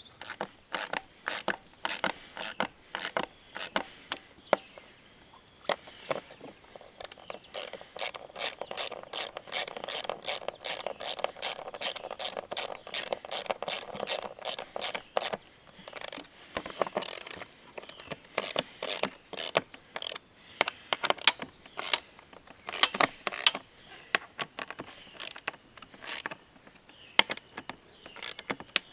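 Hand ratchet clicking as the bolts holding the fuel pump and fuel gauge unit into the gas tank are turned in: scattered clicks, with a fast even run of about five clicks a second through the middle.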